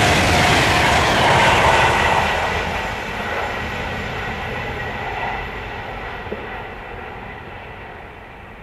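A passing train running loud at first, then fading steadily as it draws away.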